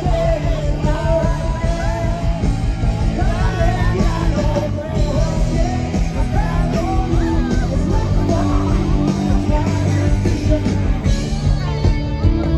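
Loud live rock music with a singer, heard from within the crowd, with people shouting along.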